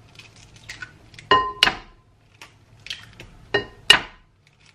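Eggs knocked against the rim of a ceramic mixing bowl to crack them: two pairs of sharp knocks, the first a little over a second in and the second about three and a half seconds in, each knock leaving a brief ring from the bowl.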